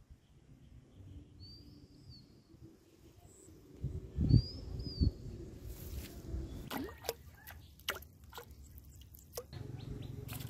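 A bird chirps twice, each call a short arched note, in the first half. Two low thumps come about four and five seconds in, followed by a run of sharp clicks and taps.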